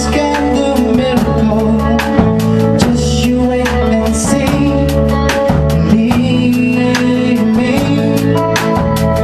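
A rock band playing live: electric guitar, bass guitar and drum kit with a steady beat, and a man and a woman singing into handheld microphones.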